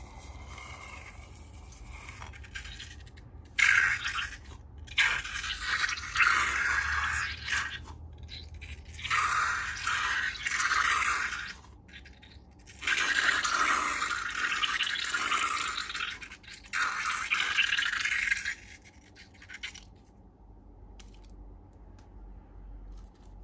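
Slime being handled up close: four bursts of scratchy, hissing noise, each a few seconds long, with short quiet gaps between.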